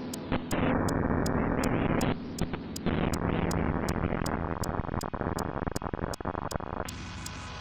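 Electronic noise music from a software synthesizer: harsh, hissing noise blasts that cut in and out abruptly, crackling in places, over a steady high tick pulsing about two to three times a second.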